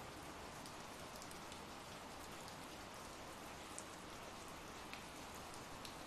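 Faint, steady rain ambience, with a few soft drop ticks.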